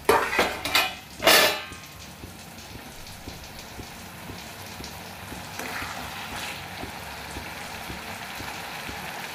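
Steel lid coming off an iron kadai with two loud metal clatters in the first second and a half, then the pea-and-onion masala sizzling and bubbling steadily in the kadai.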